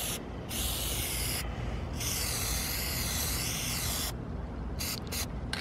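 Aerosol can of black Plasti Dip spraying in several hissing bursts, the longest about two seconds, with two short puffs near the end.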